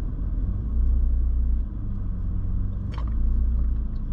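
Low rumble of a car heard from inside its cabin, swelling and easing every second or so, with one short click about three seconds in.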